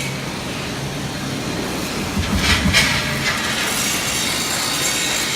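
W12 four-roll CNC plate rolling machine running, its rolls turning steel plate with a steady mechanical noise, and a louder rough grinding burst about two and a half seconds in.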